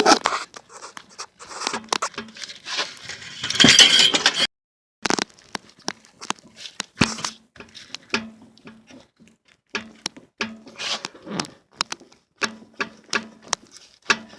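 Irregular light knocks and clicks from a 1997 Honda Accord's front suspension as the upper control arm is rocked up and down by hand, with a denser scraping, rattling stretch about three to four seconds in. The knocking comes from play in the upper ball joint, which is worn.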